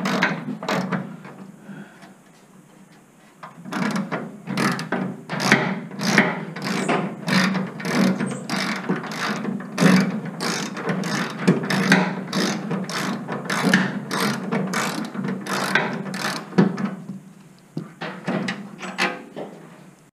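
Hand socket ratchet clicking in quick runs of strokes as it turns out half-inch fender bolts, with a lull about two seconds in and a brief pause near the end.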